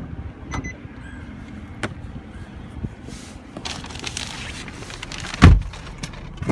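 A Nissan Murano's door being handled: a sharp latch click at the start and a short electronic beep just after, then light clicks and rustling, and a heavy thump about five and a half seconds in.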